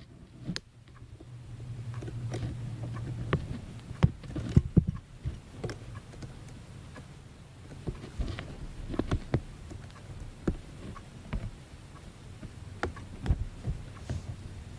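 K'nex plastic rods and connectors being handled and snapped together: a string of irregular sharp clicks and small knocks, with a low handling rumble in the first few seconds.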